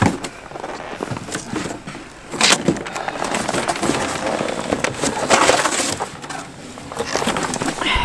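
A large sheet of stiff cardboard being bent and handled, crackling and scraping, with a sharp crackle about two and a half seconds in.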